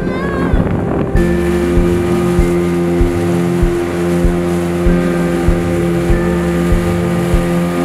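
About a second of wind and boat noise, then background music cuts in: a steady kick-drum beat, about three beats every two seconds, under sustained chords that change every so often.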